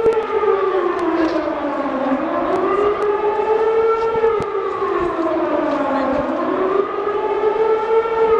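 A siren wailing, its pitch slowly rising and falling and peaking about every four seconds.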